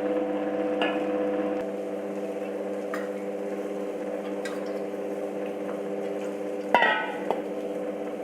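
Electric wet grinder running steadily as it grinds soaked urad dal into idli batter, giving a steady pitched hum. A brief, sharper sound cuts in about seven seconds in.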